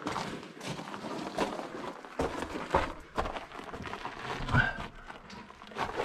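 Footsteps scrambling over loose stone, with irregular scuffs, knocks and scrapes.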